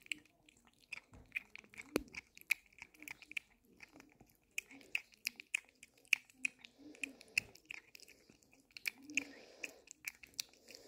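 A cat licking purée from a squeeze tube of lickable cat treat: many quick wet tongue clicks and smacks, a couple a second, with a soft breathy sound near the end.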